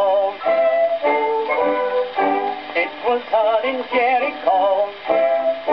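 A 1922 78 rpm novelty music-hall record playing on a gramophone: a man singing with instrumental accompaniment, his voice wavering in pitch on the held notes.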